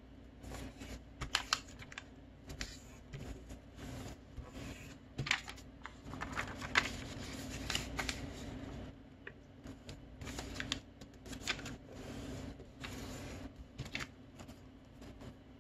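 A sheet of origami paper being folded and creased by hand, its edges brought to the centre line: irregular crinkles, rustles and short sharp taps as fingers press and smooth the folds flat.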